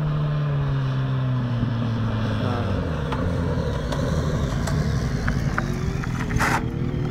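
Sport motorcycle engine heard from down the runway, its pitch falling steadily over the first few seconds as the revs drop. From about five seconds in the pitch climbs again as the engine is revved.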